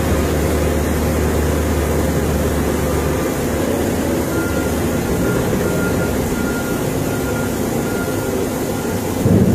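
Wheel loader's diesel engine running steadily as the machine drives into a heap and digs its bucket in; its deep hum changes about three seconds in. From about halfway a faint, evenly spaced beeping sounds, and a short thump comes near the end.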